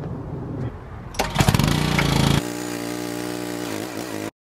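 Small gas engine of a pressure washer running steadily. About a second in, a loud rush of noise joins it for about a second, likely the spray starting, before the engine runs on at a steady, different pitch. The sound cuts off abruptly near the end.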